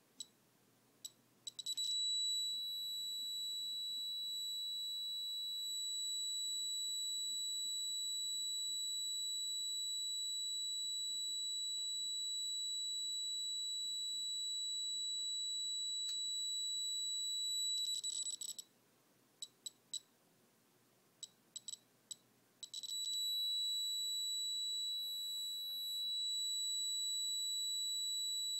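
Homemade Geiger counter with a 7317 pancake tube: a few single clicks from its piezo sounder, then a steady high-pitched alarm tone as the count rate climbs to tens of thousands of counts per minute, the sign of a strong radioactive source at the tube. The tone breaks off about two-thirds of the way through, leaving a handful of separate clicks, then comes back.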